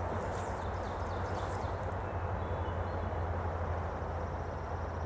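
Small stream flowing steadily, with a low rumble beneath the water noise.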